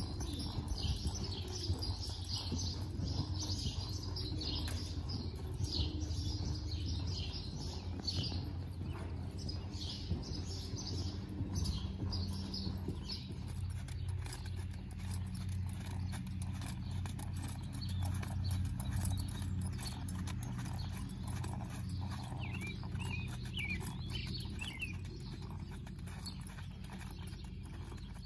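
A three-year-old Paint mare's hoofbeats on arena sand and dirt as she is ridden at a slow gait, in a repeated even rhythm.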